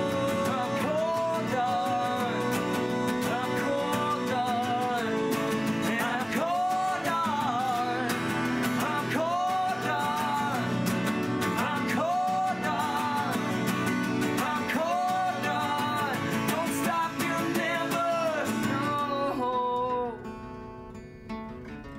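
Two acoustic guitars strummed under sung vocals in a live acoustic song. About two seconds before the end the singing stops and the guitars carry on alone, quieter.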